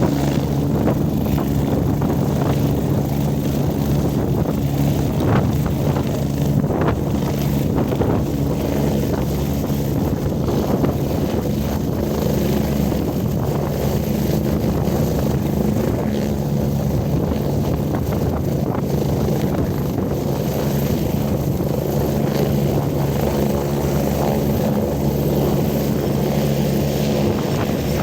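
Helicopter running steadily: a constant low, multi-toned hum of rotor and engine that holds the same pitch and level throughout.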